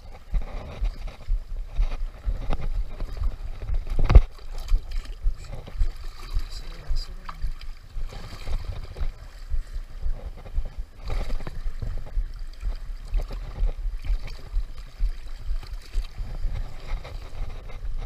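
Wind buffeting an action camera's microphone in gusts, with shallow water sloshing and splashing over shoreline rocks as a hooked snook is landed by hand. A sharp knock about four seconds in.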